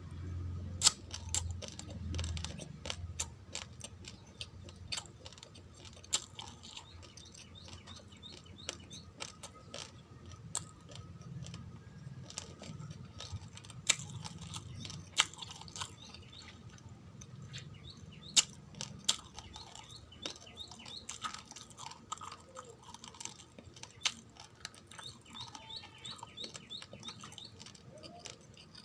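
Uncooked rice grains being chewed close to the microphone: irregular sharp, crunchy cracks as the hard grains break between the teeth, a few of them much louder than the rest.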